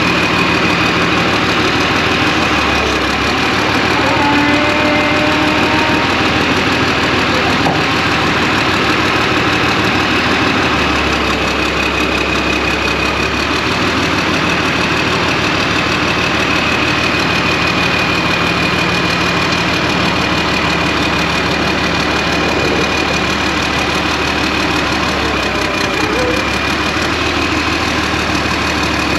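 Alvis Stalwart Mk2's turbo diesel engine running steadily while its Hiab hydraulic crane is worked, the boom lifting and slewing. A steady high whine sits over the engine, and the low engine note shifts a few times.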